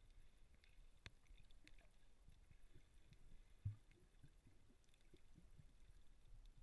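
Near silence from a camera held underwater: faint, muffled low rumbling of water movement, with one soft thump a little past halfway.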